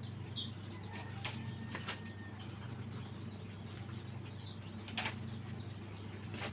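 Eggs being set by hand into plastic hatching baskets, with a few sharp clicks of shell against plastic over a steady low machine hum.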